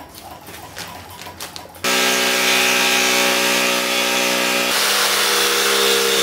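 Black & Decker jigsaw cutting through a painted wooden board; it starts suddenly about two seconds in and runs steadily, its pitch dropping slightly a few seconds later.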